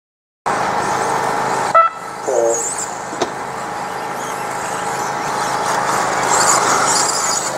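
Radio-controlled stadium trucks running on the track, with high thin whines coming and going over a steady outdoor din. A short loud beep sounds about two seconds in.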